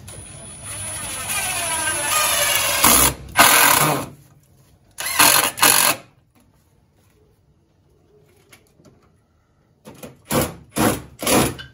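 Cordless drill driving screws into wooden ceiling framing. The motor whirs and climbs in pitch over a couple of seconds, then gives two short, loud bursts near the middle as the screws go home.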